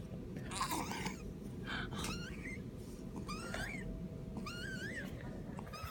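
A wheezing pet: a raspy, breathy wheeze about half a second in, then about four short, high, squeaky calls roughly a second apart, each wavering upward in pitch.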